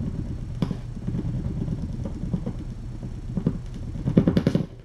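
A plastic ball rolling and rattling around a cat's circular track toy as kittens paw at it: a rumbling clatter of quick knocks that is loudest near the end and stops abruptly. A steady low hum runs underneath.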